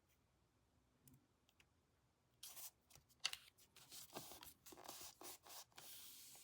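Near silence, then about two and a half seconds in, faint rustling and scraping of cardstock being handled and set in place, with a sharp tap shortly after.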